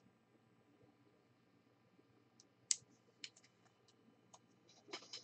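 A few faint, scattered clicks and taps of light handling. One sharper click comes about halfway through, and a quick run of small clicks comes near the end.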